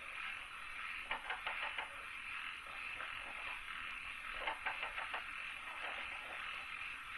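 Outdoor nature ambience: a steady high hiss with short runs of rapid clicking calls, about a second in and again around four and a half seconds in.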